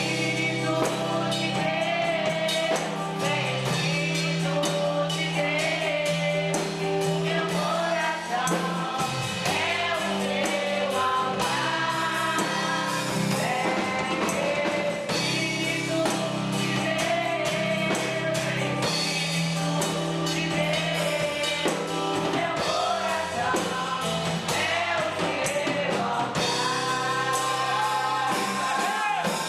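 Gospel worship song: voices singing a melody over a band with a steady drum beat and bass.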